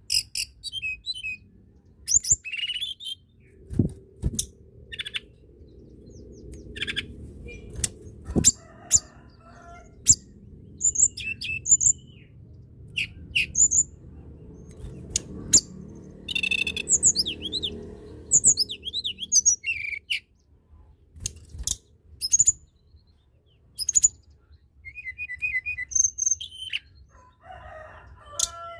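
A tledekan gunung songbird in full song: a run of short, sharp high chirps and whistled notes separated by brief pauses, with a quick trill near the end.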